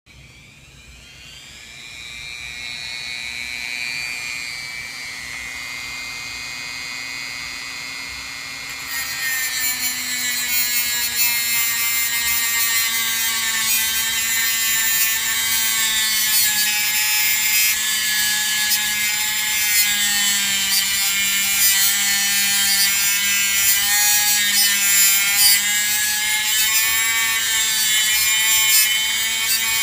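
Dremel rotary tool with a cutting wheel spinning up to a steady high whine, then, about nine seconds in, biting into the metal motor shaft and adding a loud, harsh grinding hiss as it cuts a pulley notch.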